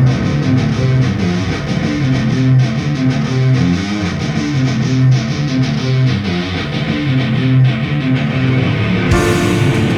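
Rock band music led by electric guitar, with a repeating low riff; the sound gets brighter and fuller about nine seconds in.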